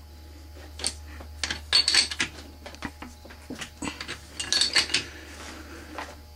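Light metallic clinks and rattles from hands working at a metal lathe, scattered through the middle few seconds, over a low steady hum.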